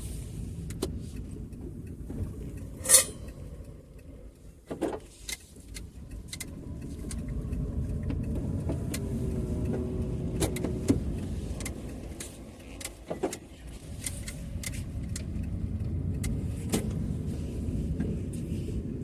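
A steady low rumble with scattered clicks and knocks, and one sharp click about three seconds in.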